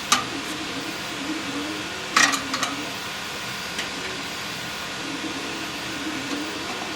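Steady hiss-like background noise with a faint wavering hum. A sharp click comes at the very start, and a short clatter of knocks follows about two seconds in, with a lighter tap a little later.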